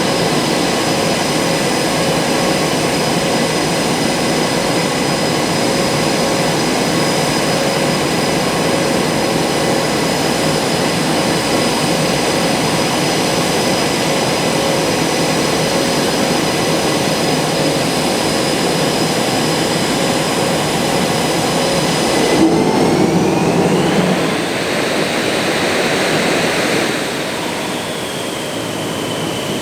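The twin General Electric F414 turbofan engines of a Blue Angels F/A-18 Super Hornet run steadily with a constant high-pitched whine over a loud rumble. About three-quarters of the way through, the whine glides up in pitch and the rumble swells, then the sound drops somewhat in loudness near the end.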